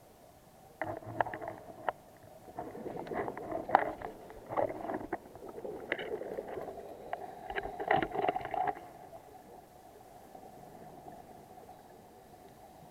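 Underwater audio on a scuba boat dive: a steady faint hum, overlaid from about a second in by irregular clicking and bubbling bursts for some eight seconds, which then stop and leave the hum.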